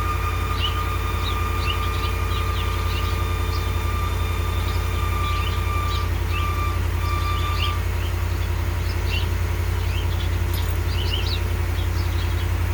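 2019 Ram 1500 idling on a cold start with a steady high-pitched squeal from the accessory belt drive; the squeal falters about five seconds in and stops about eight seconds in. The squeal was traced to a worn idler pulley and tensioner, whose replacement cured it, after alternator, battery and battery sensor replacements made no difference.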